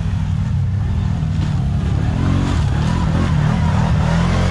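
Quad bike (ATV) engine running under load off-road, its revs rising about halfway through.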